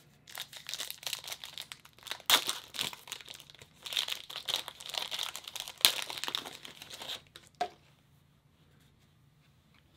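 Foil wrapper of a trading-card pack being torn open and crinkled: a dense run of crackles and rips, with a few sharp snaps, that stops a couple of seconds before the end.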